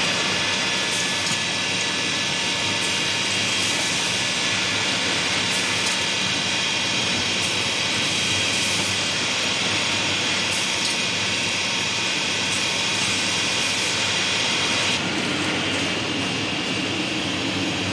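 Roof-tile production line machinery running: a steady mechanical drone with a high whine. The whine drops away about fifteen seconds in, leaving the drone.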